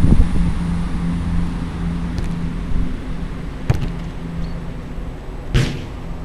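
A football kicked once with a sharp thud about three and a half seconds in, then a louder crash about two seconds later as the ball strikes the goal or the pitch fencing. Wind rumbles on the microphone at the start.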